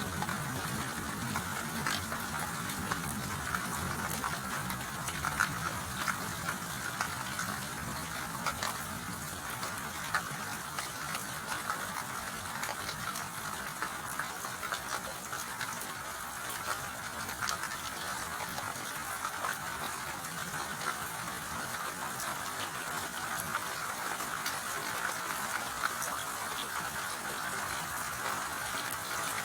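Steady rainfall, an even hiss of rain with many fine drop ticks and no break.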